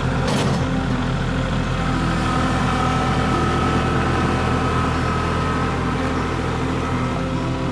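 Kubota compact tractor's diesel engine running steadily as the tractor backs up, with a brief clatter just after the start.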